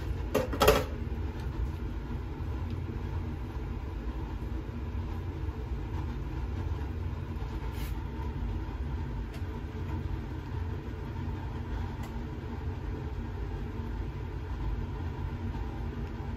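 Steady low background rumble with a brief clatter about half a second in.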